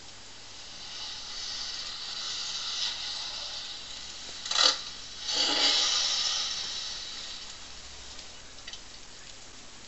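Car noise effects played from a thin flexi-disc through a small vintage mono record player's single speaker: a hissing sound swells and fades, with a sharp burst about four and a half seconds in and a louder hiss just after it.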